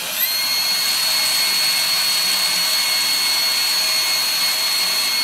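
Air-driven EDDY sonic irrigation activator starting up a fraction of a second in with a short rising whine. It then runs with a steady high whine over a constant hiss as its polymer tip agitates sodium hypochlorite irrigant in the root canal.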